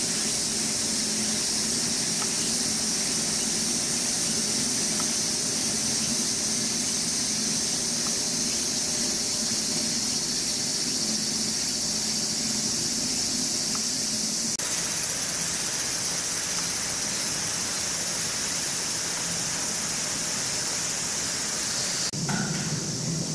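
Steady, shrill chorus of cicadas, its pitch and mix changing abruptly about fifteen seconds in.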